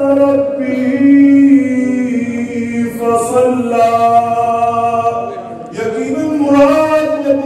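A man's voice chanting a Quranic verse in melodic recitation, with long held notes that slide between pitches and a short pause for breath about five and a half seconds in.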